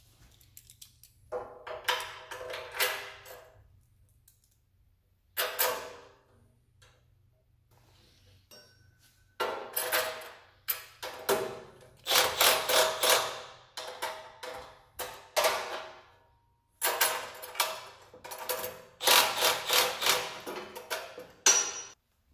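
Cordless impact driver running bolts into a steel bracket in about seven short bursts of rapid hammering, each one to two seconds long, with pauses between them.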